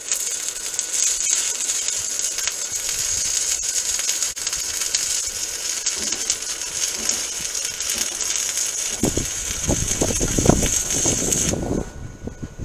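Arc welding on steel: a steady, loud crackle and sizzle that starts suddenly and cuts off abruptly near the end, with some low knocks in its last few seconds.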